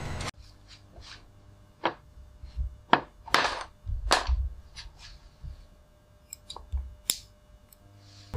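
Irregular sharp knocks and clanks, about a dozen spread unevenly, a few trailing a short hiss, over a faint low hum. A steady machine noise cuts off just after the start.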